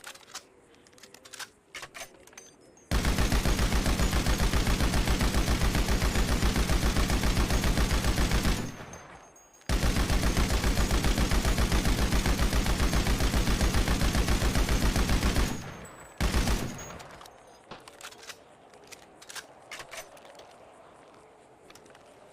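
Machine gun firing two long continuous bursts of rapid automatic fire, each about six seconds, then a brief short burst. Scattered light clicks come before and after the bursts.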